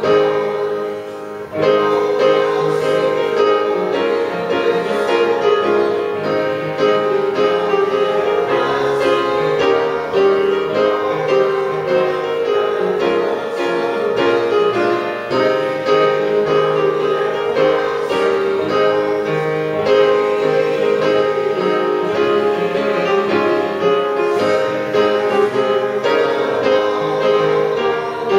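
Slow instrumental music played on a keyboard instrument, with long held notes and a short lull about a second in.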